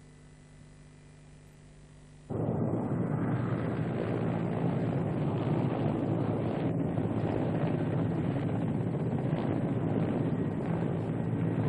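Faint steady hum, then about two seconds in a sudden cut to the loud, steady rumble of a helicopter in flight, heard from inside the cabin.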